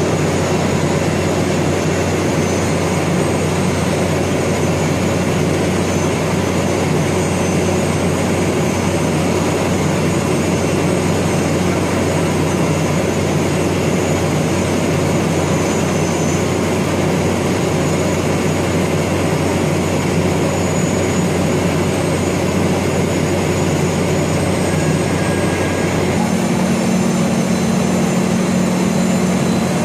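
Steady, loud drone of heavy machinery running. A low hum underneath changes to a higher-pitched hum about 26 seconds in.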